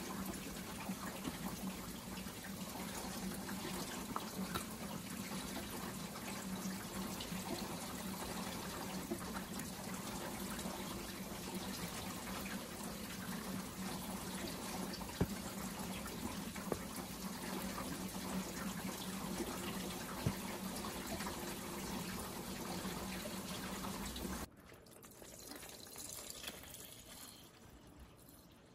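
A steady rushing noise like running water, with a low hum under it, cutting off abruptly about 24 seconds in and leaving the rest much quieter.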